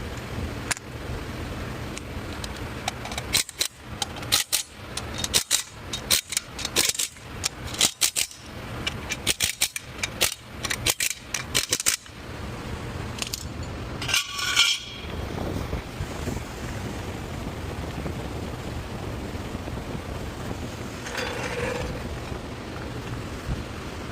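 Metal hand tools and parts clinking and clicking in a quick, irregular run for several seconds, then one louder ringing metal clank, over a steady shop hum.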